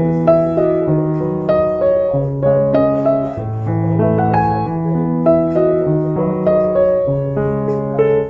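Background piano music: slow held notes and chords that change about once a second.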